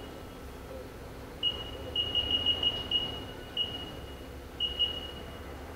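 Control-panel keypad of a Haas CNC lathe beeping as keys are pressed: a single beep, then a quick run of about seven short beeps, then a few more spaced out, all at the same high pitch. A faint steady hum sits underneath.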